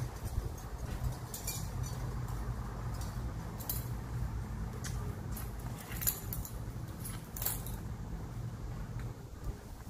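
Light metal clinks and jingles of a dog's collar and leash being handled, scattered through and strongest about six and seven and a half seconds in, over a steady low hum.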